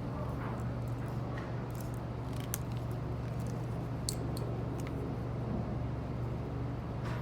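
Steady low hum with a few faint, sharp clicks and ticks from network cable and RJ45 connectors being handled.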